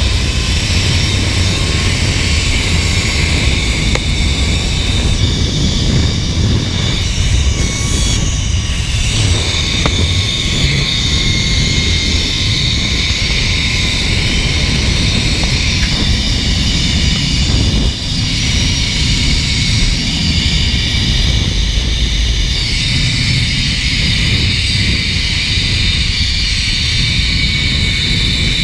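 Wind rushing over the microphone as the rider speeds down a zip line, with the trolley's pulleys running along the steel cable in a steady high whine.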